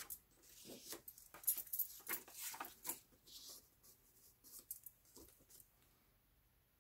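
Paper and cardboard rustling and sliding as a kraft-paper folder is handled and opened out, in quick scraping bursts through the first three seconds, then a few light clicks and taps.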